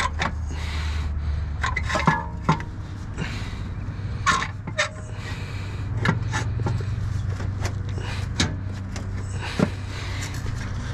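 Irregular metal knocks, clicks and clanks from an exhaust downpipe being worked loose and shifted around under a car, over a steady low rumble.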